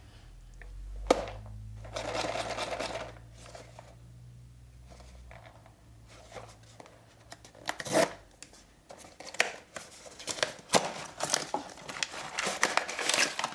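A cardboard blind box being handled: a sharp tap about a second in, a short rustle, then a run of quick clicks, taps and crinkles through the last several seconds.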